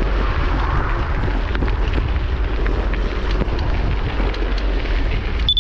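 Wind buffeting the microphone of a camera riding along on a bicycle: a steady low rumble with hiss. The sound briefly cuts out near the end.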